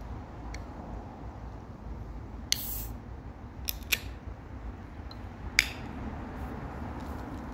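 Ring-pull of an aluminium drink can being worked open by hand: a sharp crack with a short hiss about two and a half seconds in, a couple of small tab clicks, then a second, louder crack with a brief hiss a few seconds later.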